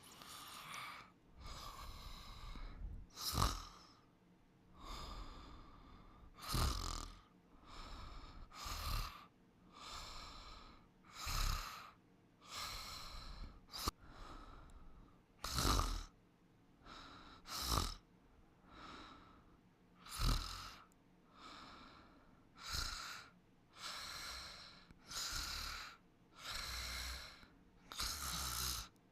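Snoring during sleep: slow, even breaths in and out, one full breath about every two seconds. Some breaths are sharper and louder than the others.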